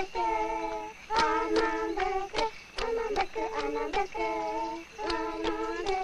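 Biaka children singing together in held notes that step between a few pitches, over sharp hand slaps keeping a steady beat about every half second.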